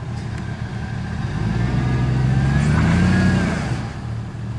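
Off-road vehicle engine revving up, its pitch rising and getting louder for about two seconds, then easing off near the end.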